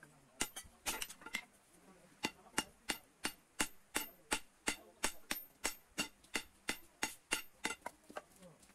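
A hammer forging the red-hot end of an iron bar on a steel anvil block, each blow giving a sharp metallic ring. A few irregular strikes come first, then a steady rhythm of about three blows a second from about two seconds in until near the end.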